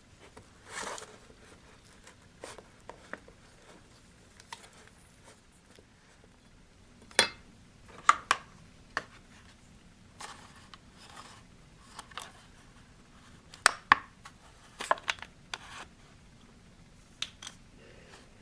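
Fluffy homemade slime being mixed and worked, giving irregular sharp clicks and pops, several in quick clusters about halfway through and again near the end.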